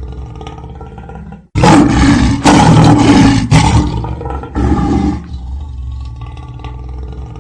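A looping ringtone. A quieter held, droning tone breaks off suddenly about a second and a half in. A loud, rough, roar-like passage then runs for about three and a half seconds before the quieter held tone returns.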